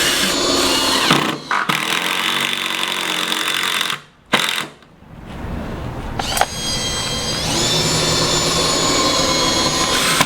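Power drill driving screws into wood: the motor whine runs in long stretches, its pitch shifting as the screw goes in, with brief stops and a near pause about four seconds in.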